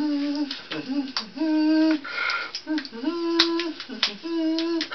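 A man singing in a high, sing-song Swedish Chef voice: a string of held notes of wordless gibberish. A few sharp clicks of a spoon on a pan come in between, the sharpest about three and a half seconds in.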